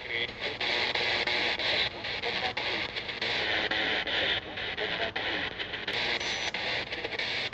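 Steady, rough hiss like static, strongest in the upper range and flickering in strength throughout.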